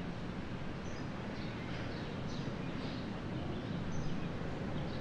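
Outdoor countryside ambience: scattered short, high bird chirps over a steady low background rumble.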